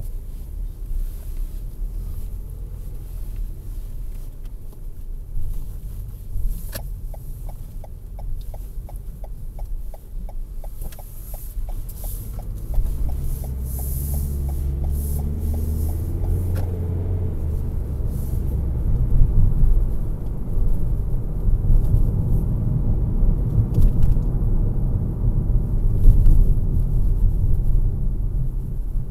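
Cabin sound of a 2020 Toyota Corolla Hatchback pulling away: the turn-signal indicator ticks quickly and evenly for about ten seconds. Partway through, the engine rises in pitch as the car accelerates, and it settles into a steady low engine and tyre rumble on the road.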